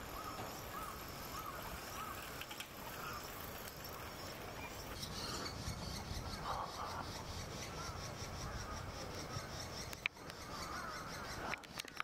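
Wild birds calling: short repeated call notes come and go, with a quick run of high ticking notes in the middle. A couple of sharp clicks come near the end.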